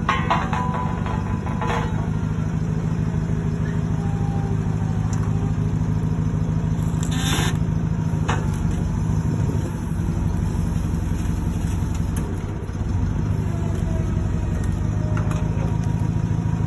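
Forklift engine running steadily with a low hum, with scattered knocks and rattles and a short hiss about seven seconds in.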